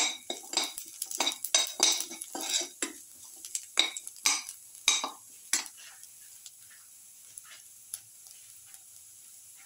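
A perforated steel skimmer spoon scraping and clinking against a metal pan, about two strokes a second, as sliced onions and garlic are stirred in oil, with a faint sizzle underneath. The stirring stops about six seconds in.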